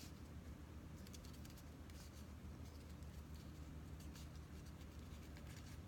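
Faint rustling and light ticking of cardstock being handled and pressed into place, scattered soft clicks over a low steady hum.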